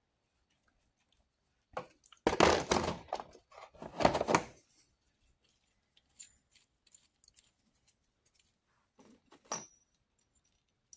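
Steel taps, dies and a die handle from a Pittsburgh 60-piece tap and die set clattering against their moulded plastic case as a die is set back into its slot and the handle lifted out. Two loud bursts of rattling about two and four seconds in, light clicks after, and a single knock near the end.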